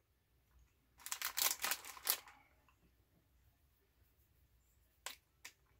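Plastic snack packaging crinkling for about a second, then two short clicks near the end.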